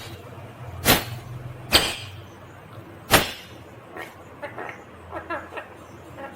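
Indian ringneck parakeet giving three short, harsh screeches about a second apart, then softer chattering calls from about four seconds in.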